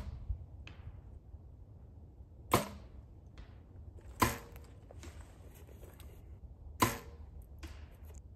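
Compound bows shot in turn: three sharp snaps of the bowstring at release, about two and a half, four and seven seconds in. Each is followed a little under a second later by a fainter knock as the arrow hits the target.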